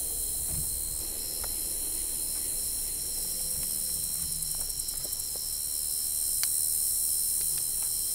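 Steady night chorus of crickets and other insects, a continuous high chirring, with a few faint clicks.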